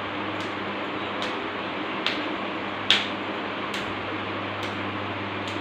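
Sharp clicks at an even pace, about one every second, seven in all, the loudest about halfway through, over a steady hum and hiss.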